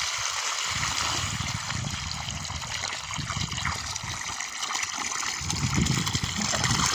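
Water pouring steadily from a plastic watering can's spout into a flooded planting hole, splashing and trickling into the pooled water over the soil.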